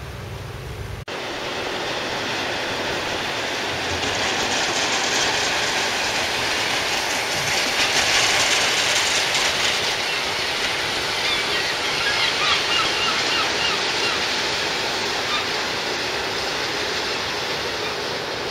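Fast water rushing down a muddy tidal creek channel as it is flushed, a steady rush that swells in the middle. A few short high calls come through it around the middle.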